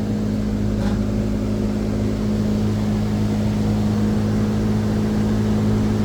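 Steady machinery hum with a constant low drone, unchanging throughout.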